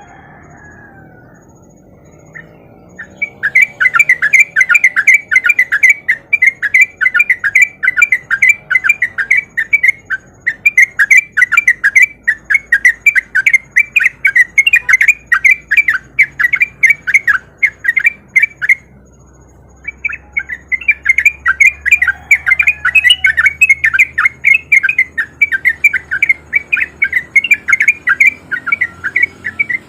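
Yellow-vented bulbul (trucukan) singing a long, fast run of repeated chattering notes that starts about three seconds in. The song breaks off briefly about two-thirds of the way through, then resumes.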